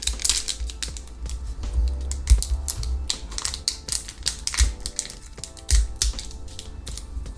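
Crinkling and rustling of a plastic anti-static bag being handled and opened by hand, in quick irregular clicks. Background music plays underneath.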